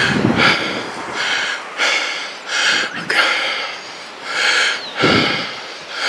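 A person breathing, in short audible breaths about two a second.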